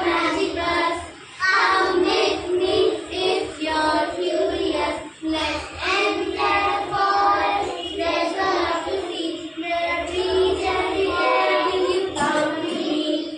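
A class of young children singing together in unison, with short breaks about a second in and about five seconds in.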